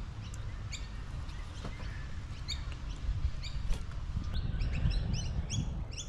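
Small birds chirping: short, high rising calls scattered throughout and coming quicker near the end, over a low steady rumble.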